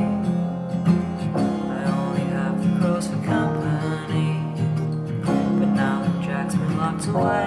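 Instrumental passage of a song, led by strummed acoustic guitar.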